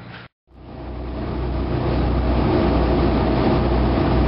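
A boat's engine running steadily, a low drone with a haze of noise above it. It cuts out briefly near the start and fades back in.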